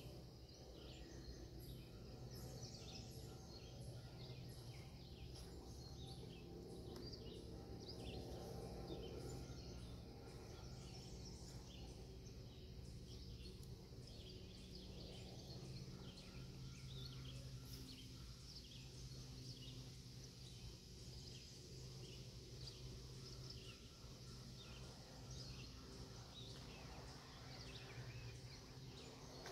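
Faint outdoor ambience: small birds chirping in short, high, rapidly repeated calls, over a low steady hum.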